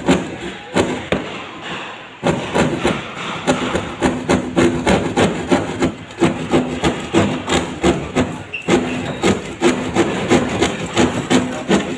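Narrow pointed hand saw cutting into a ceiling panel overhead in quick back-and-forth strokes, several a second, with a short pause about two seconds in.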